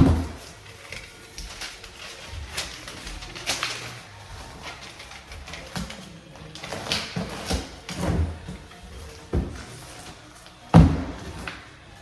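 Irregular knocks, clunks and thumps of hard materials being handled and set down, with a loud bang about a second before the end.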